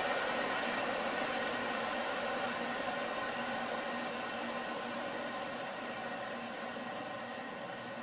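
Compressed air hissing out of the WARDJet M-2540 waterjet tank's ballast through its opened vent, a steady hiss that slowly fades. Releasing this air lets the water level in the cutting tank drop back down.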